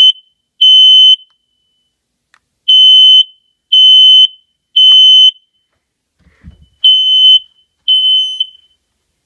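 Smoke alarm sounding during a test-button test: a loud, high-pitched beep repeated in the three-beep temporal evacuation pattern, about one beep a second with a pause between groups. The last group stops after two beeps, and a faint knock comes just before them.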